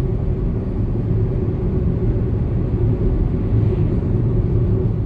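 Steady low rumble of a car driving at speed, road and engine noise heard from inside the cabin.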